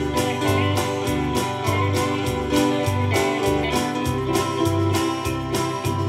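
Live country-gospel band playing an instrumental passage: acoustic-electric guitar over bass and drums keeping a steady beat.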